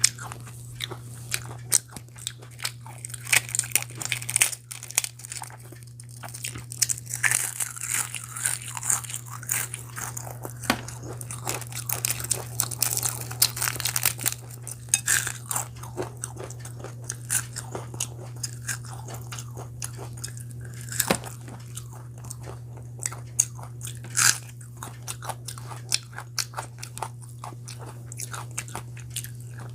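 Close-miked eating: a person biting and chewing, with many sharp, irregular crunchy clicks. A steady low hum runs underneath.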